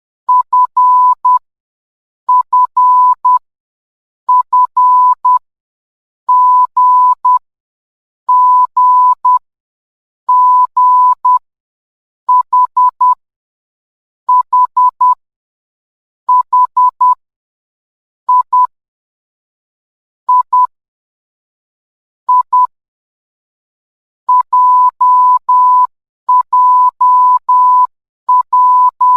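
Morse code letters sounded as beeps of one steady pitch, short dots and longer dashes, one letter group about every two seconds.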